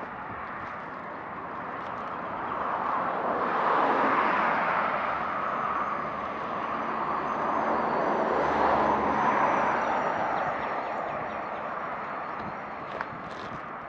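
Passing motor traffic: a steady rush of engine and road noise that swells twice, with a faint high whine in the middle of the second swell.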